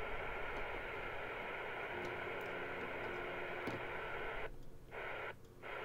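Binatone 5 Star CB radio hissing steadily with receiver static from its speaker, cutting out twice for a moment near the end.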